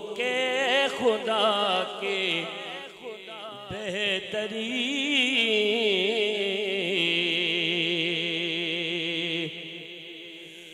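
A singer performing a manqabat, Sufi devotional praise song, in long melismatic phrases with a wide vibrato and held notes; the singing dies away about nine and a half seconds in.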